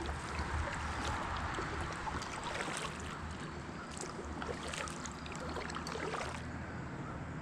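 Moving river water around a kayak, a steady rush with scattered short splashes and drips from the paddle.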